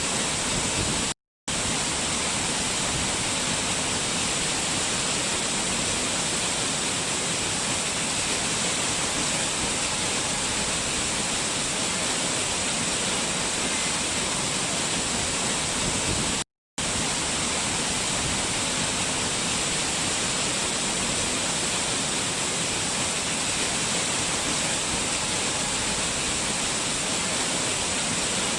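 Waterfall rushing steadily, cutting out to silence twice for an instant, about a second in and again about sixteen seconds in.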